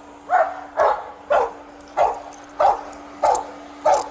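Police dog barking over and over, about one short bark every 0.6 seconds, over a faint steady hum.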